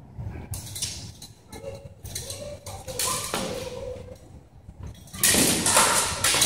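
Steel swords knocking and clinking together during a cut-and-thrust bout. Scattered short knocks come first, and a louder, noisier burst begins about five seconds in as the fighters close.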